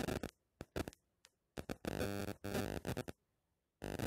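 Choppy, broken-up audio: short bursts of hiss and a brief snatch of music-like tones about two seconds in, cut apart by gaps of dead silence.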